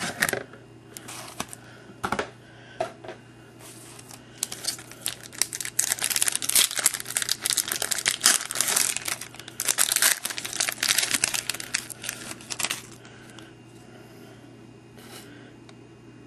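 Baseball card pack wrapper being torn open and crinkled: scattered rustles, then a dense run of crinkling from about four seconds in that stops near thirteen seconds, leaving only a faint low hum.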